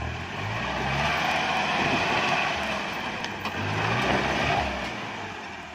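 Mahindra Bolero's diesel engine revving hard under load as the SUV crawls over riverbed boulders. The engine note climbs twice, about a second in and again near four seconds, then eases off near the end.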